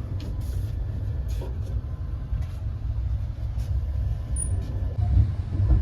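Low, steady rumble of a moving passenger train coach, with faint light clicks and rattles.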